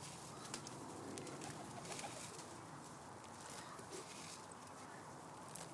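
Faint, steady cooing of a flock of magpie pigeons, with light scattered clicks.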